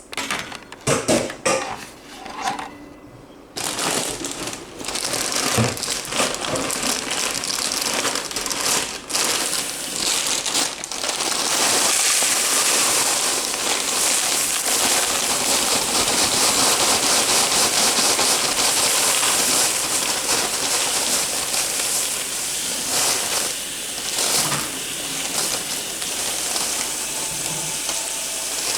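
Kitchenware and plastic containers clattering and knocking, then from about twelve seconds in a kitchen tap running steadily into the sink.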